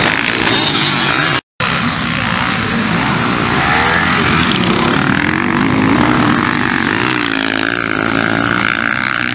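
Several motocross dirt bikes racing past, their engines revving up and down in overlapping rising and falling pitches as riders work the throttle through the turns. The sound cuts out for a moment about one and a half seconds in.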